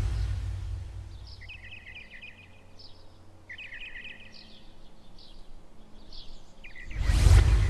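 Birds chirping in short repeated trills over a low steady rumble, with a loud whoosh near the end.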